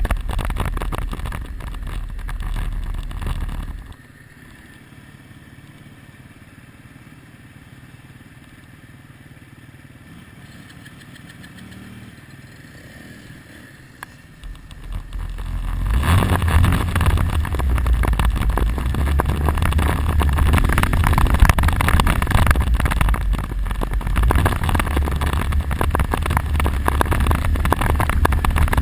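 ATV quad engine running loud with wind noise. About four seconds in it drops to a much quieter stretch, then comes back loud again at about fifteen seconds.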